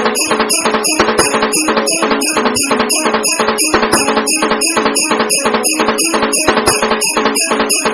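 Music with a fast, steady beat of about four strokes a second and pitched notes underneath.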